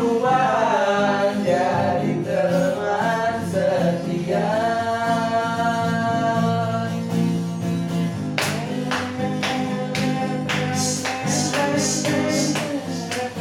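Music: a sliding, voice-like melody over steady chords, joined about eight seconds in by a rhythm of sharp percussive strokes.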